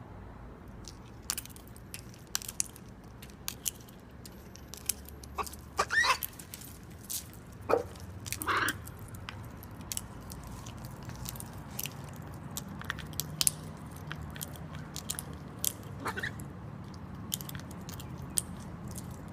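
Wild macaw biting and crunching food, its beak making many sharp irregular clicks and cracks. A few louder short sounds with a sliding pitch come about six to nine seconds in and again near sixteen seconds.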